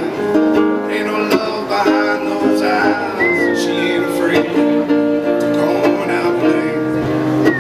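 Instrumental break of a song: acoustic guitars strumming chords, with a high note gliding down about three seconds in and again near the end.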